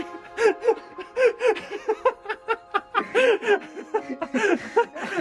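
A person laughing in bouts of short, rising-and-falling bursts, with a short lull about two seconds in, over background music.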